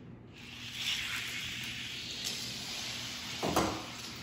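Die-cast Hot Wheels cars rolling down an orange plastic track with a steady rattling whir, followed by two sharp knocks near the end as the cars finish.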